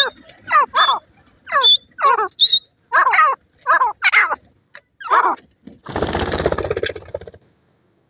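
Grey francolin calling: a quick run of short, harsh notes falling in pitch, often in pairs, with brief thin high peeps between them. The calls stop about five seconds in, and a rapid rattling noise follows for over a second.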